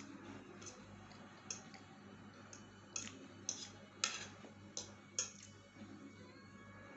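Irregular sharp clicks of a metal fork tapping and scraping a ceramic plate of noodles and egg while eating, about eight in all, the loudest about four seconds in.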